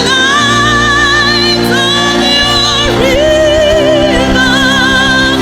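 A female voice singing a slow gospel worship song with vibrato on long held notes, over sustained keyboard chords and bass.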